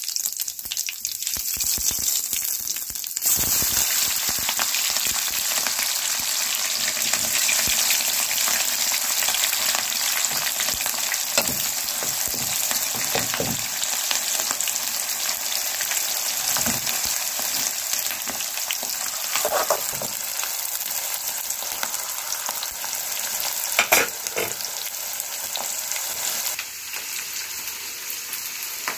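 Hot oil sizzling in an iron kadai: cumin seeds and bay leaves frying lightly, then a much louder, fuller sizzle from about three seconds in as chopped onion, green chilli and peas fry, with a few sharp knocks, the loudest about 24 seconds in. The sizzle drops off near the end.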